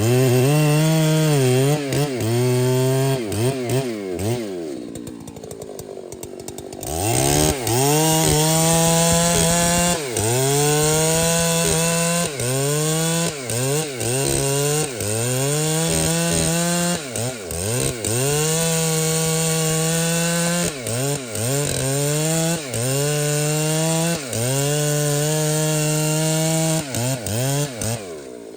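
Large chainsaw running at full throttle through trembesi wood, its pitch repeatedly dipping and recovering under load in the cut. About four to five seconds in it drops to idle for a couple of seconds, then revs back up and keeps cutting.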